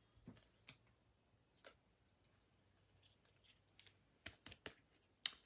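A few faint plastic clicks and taps from baseball cards being handled and slid into clear plastic card holders, with small scattered clicks at first, a short cluster later and the loudest click near the end.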